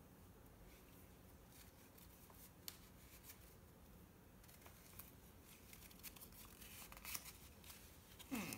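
Near silence with faint handling noise and a few light clicks as a fabric sock puppet is worked onto a hand and its felt mouth adjusted. A short falling sound comes near the end.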